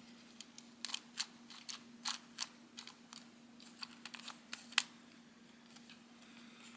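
Scattered light plastic clicks and taps from a small plastic Rhydon battle-feature action figure being handled as its arm is worked, which makes all four limbs move together; a faint steady hum underneath.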